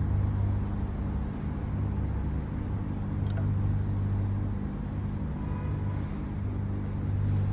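Steady low electrical hum, with one faint click a little over three seconds in.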